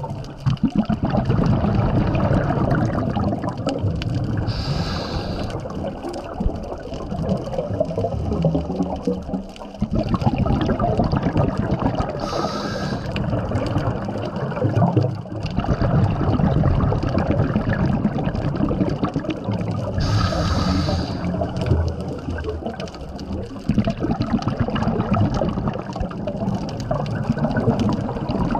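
Scuba diver breathing through a regulator underwater, picked up by the camera. There are three short hissing inhales about eight seconds apart, with a rumble of exhaled bubbles between them.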